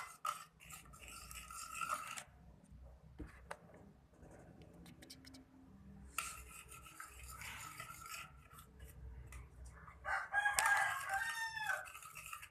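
Slime being stirred in a plastic container after activator was poured in, a scraping, rubbing sound in two spells. Near the end a rooster crows once, the loudest sound here.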